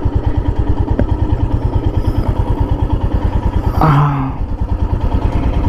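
Royal Enfield Himalayan's 411 cc single-cylinder engine running at low revs with an even thumping beat as the bike rolls slowly at walking pace. A brief louder noise cuts in about four seconds in.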